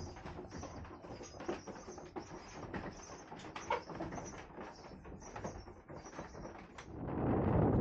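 Wooden gearing of a windmill turning in the cap: the big cogged wheel meshes with a steady run of short high squeaks about three a second, with scattered clicks and creaks over a low rumble. Near the end, a loud rush of wind noise swells in.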